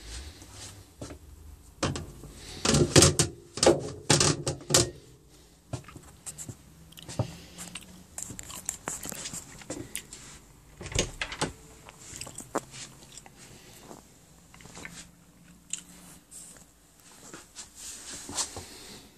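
Irregular knocks, clicks and clatter of someone handling doors and cabinetry while moving through a small motorhome interior, loudest in a burst of clattering a few seconds in, then scattered lighter clicks.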